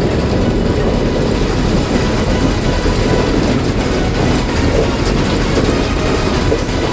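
Potato harvesting and handling machinery running with a steady, loud mechanical din and rattle.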